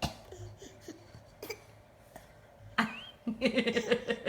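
A baby's short fake cough, with a second one about a second and a half in. Near the end comes about a second of quick, rhythmic voice sounds.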